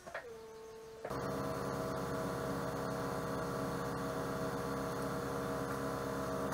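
A short falling tone settles into a faint steady tone; about a second in, a steady machine hum with several held tones switches on and runs evenly.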